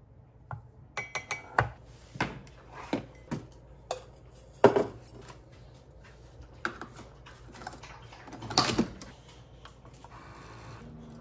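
A metal spoon clinks and taps against a ceramic mug and a tin while hot chocolate powder is spooned out, with one loud knock. Then come clicks and a clunk as a K-cup pod goes into a Keurig brewer and its lid is shut, and near the end the brewer starts a faint hum.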